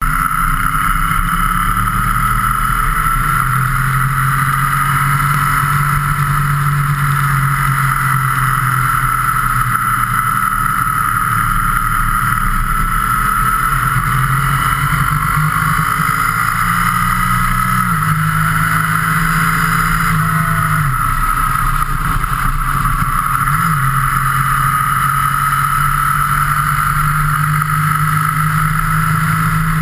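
Motorcycle engine running at road speed, recorded from a camera mounted on the bike, with a steady rush of wind noise over it. The engine note holds steady, then shifts up and down in pitch a few times about halfway through.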